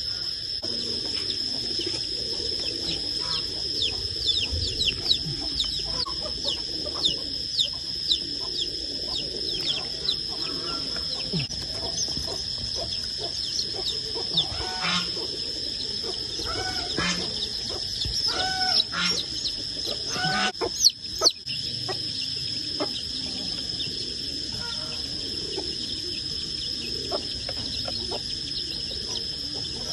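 Baby chicks cheeping: a constant stream of short, high, falling peeps, with a few louder calls about two-thirds of the way through, over a steady high-pitched whine.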